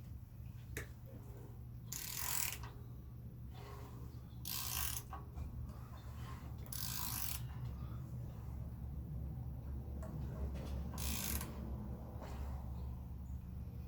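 Ratchet wrench turning a B20 engine over by its crankshaft bolt, the pawl clicking in four short bursts as the handle is swung back between strokes. The engine is being rotated by hand through full turns to check the new cam timing and belt for valve-to-piston contact.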